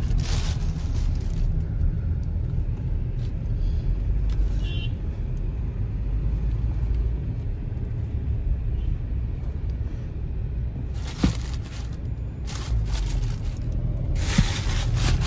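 Steady low rumble of a car's cabin on the move, with a few brief rustles and knocks from handling about a second in, around eleven seconds in and near the end.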